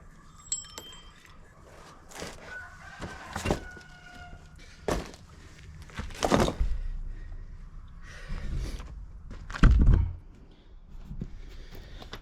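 Metal clinks, knocks and scrapes of hand tools and parts as the pulley and its worn-out bearing are taken apart, some clinks ringing briefly, with a loud thump just before ten seconds.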